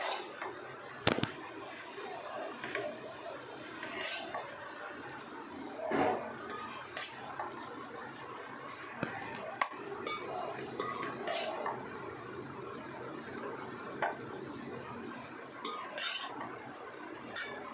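A perforated steel spoon stirs wet grated carrots and sugar in a kadhai, giving irregular scrapes and clinks against the pan over a faint steady sizzle. The mixture is cooking down to dry off the liquid the sugar has drawn out.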